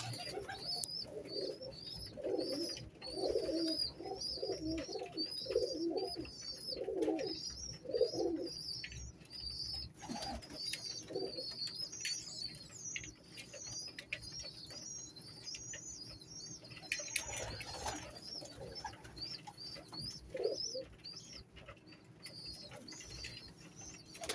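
Domestic pigeons cooing, a run of repeated low coos in the first eight seconds, over continual rapid high-pitched chirping. A short noisy burst comes about two-thirds of the way through.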